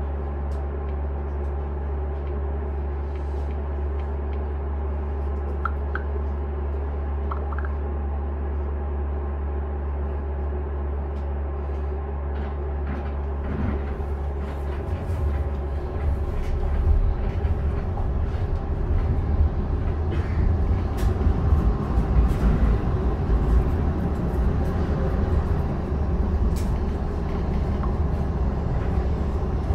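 Inside a Siemens U2 light rail car: a steady hum of onboard equipment while the car stands, then about halfway through it pulls away, and a louder rumble with clicks and rattles of the wheels and car body builds up as it gets moving.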